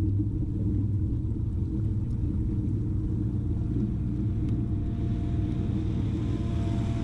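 Steady low rumble of wind and water as a kayak runs under its bow-mounted MotorGuide Xi3 trolling motor. About five seconds in, the faint hum of a distant motorboat's engine joins in.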